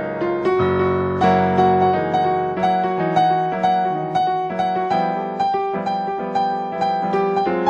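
Piano music: a melody in a steady, evenly paced rhythm of struck notes, about two a second.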